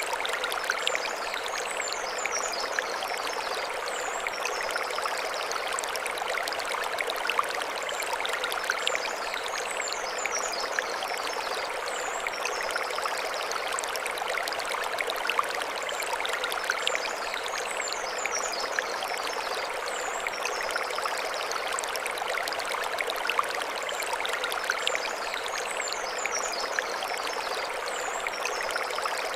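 Mountain stream flowing over stones, a steady rushing and splashing. A short high chirping phrase recurs about every eight seconds above it.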